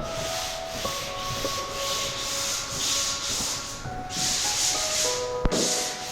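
Hand sanding on a plastered wall: abrasive rubbing strokes that swell and fade about a second each, with a sharp tick near the end.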